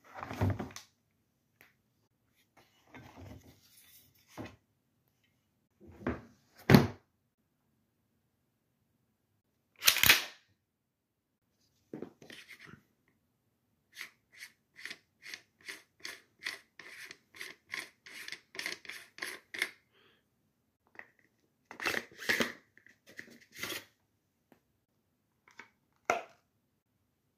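Shotgun parts and a hard plastic gun case being handled during assembly of a Benelli Super Black Eagle 3: scattered knocks and clicks, with a louder knock now and then. Midway there is a run of quick clicks, about three or four a second, for some six seconds.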